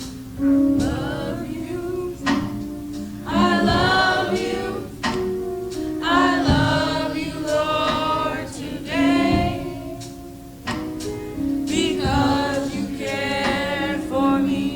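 Youth choir singing a slow gospel song in phrases, over sustained instrumental chords with regular percussive hits.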